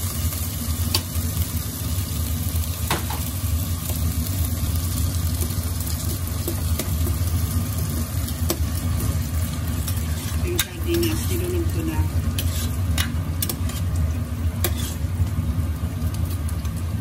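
Metal ladle stirring and scraping sautéing onion, garlic and fish in tomato sauce in a pot, with a steady sizzle and scattered clicks of the ladle against the pot, over a steady low hum.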